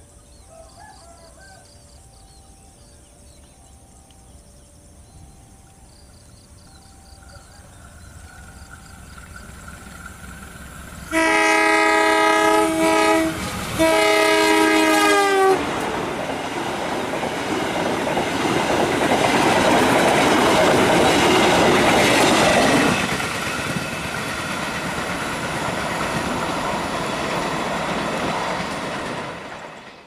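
KAI diesel locomotive's air horn sounds two long multi-note blasts as the train approaches at speed, the semboyan 35 warning signal. The passenger carriages then rush past with rumble and wheels clicking over the rail joints, the noise fading out near the end.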